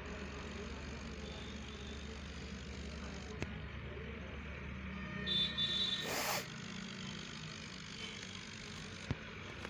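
Tractor engine running steadily with a low hum. About five and a half seconds in there is a short burst of noise with a brief high tone, and a single click near the end.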